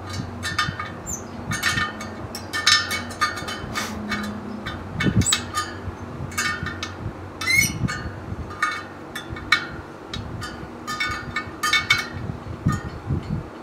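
Spoke wrench working the spoke nipples of a laced motorcycle wheel: a run of irregular metallic clicks and pings as the spokes on one side are tightened to pull the rim over and take out a wobble.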